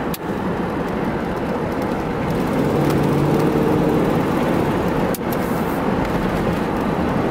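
Inside the cabin of a 1988 Buick Electra Estate wagon on the move: steady road and tyre noise with the 5.0-litre V8 running, growing a little louder about two seconds in.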